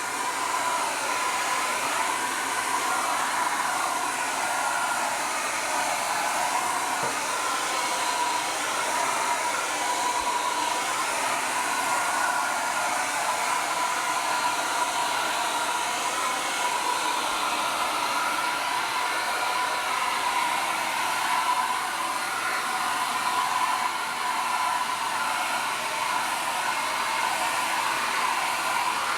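Handheld hair dryer running steadily: a constant rush of blown air with a steady whine from its motor.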